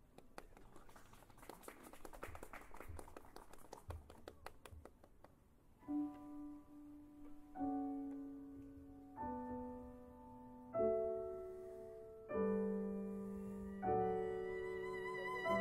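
Slow piano chords, struck about every second and a half and left to ring, follow a few seconds of soft, fast flickering sound. A violin comes in with vibrato near the end.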